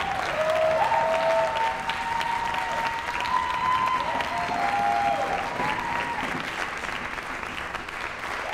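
Audience applauding and cheering at the end of an aerial silks act, with long drawn-out whoops over the clapping. The clapping thins a little near the end.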